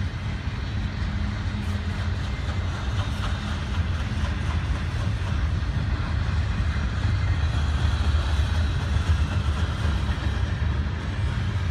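Double-stack container train's well cars rolling past, a steady rumble of steel wheels on the rails.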